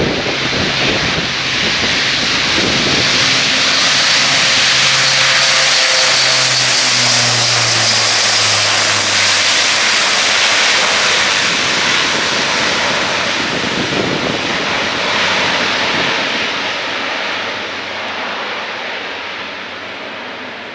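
Airbus A400M's four turboprop engines with eight-bladed propellers at take-off power as the aircraft rolls down the runway, passes close by and climbs away. The loud, dense engine noise peaks as it goes past, with a low hum dropping in pitch, then fades over the last few seconds.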